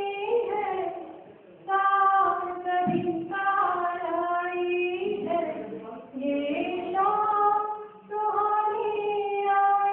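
A high woman's voice singing a slow, unaccompanied melody with long held notes and gliding pitch, breaking off briefly between phrases.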